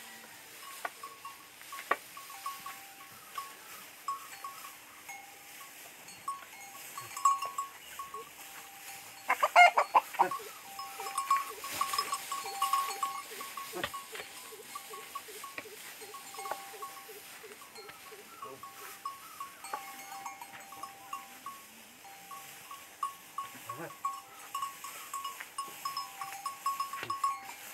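Bullocks treading harvested stalks for traditional threshing, with a steady patter of short high chirps or clinks throughout and a louder call about ten seconds in.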